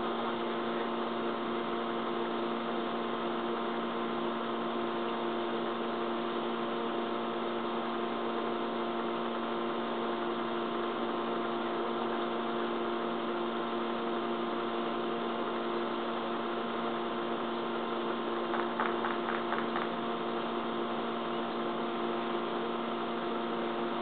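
A steady hum made of several fixed tones over a constant hiss. A short run of faint clicks comes about three-quarters of the way through.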